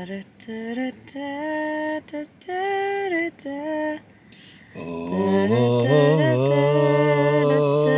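A woman sings a slow melody in short held notes with pauses between them. About five seconds in, a man joins in a lower voice and they sing together, louder and without breaks.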